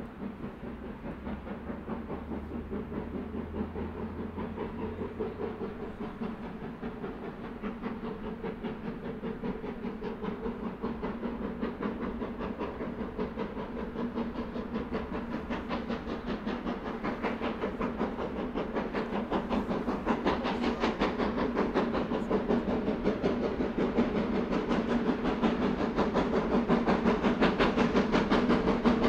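Four-cylinder GWR Castle class steam locomotive 7029 Clun Castle working a train, with a rapid rhythmic beat and steam hiss that grow steadily louder as it approaches.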